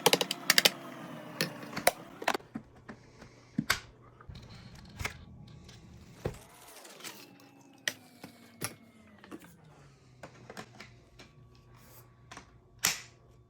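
Shark cordless pet stick vacuum running, its motor whine shifting down in pitch several times, with sharp clicks and rattles throughout and a loud one near the end.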